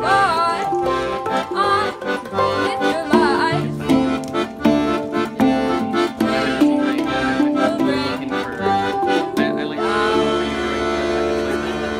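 Background music: held chords under a wavering melody line, settling into one long held chord about ten seconds in.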